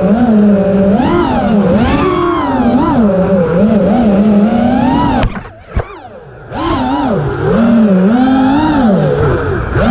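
Racing quadcopter's four T-Motor F40 III 2306 brushless motors on 5-inch props whining, the pitch swooping up and down constantly with the throttle. About halfway the sound drops away for about a second, with a sharp knock in the lull, then the motors spool back up.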